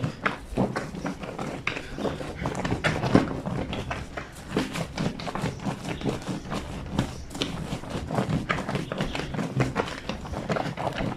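A soapy blanket being scrubbed and slapped by hand on the ribbed board of a granite lavadero: a quick, irregular run of wet thumps, squelches and rubbing strokes.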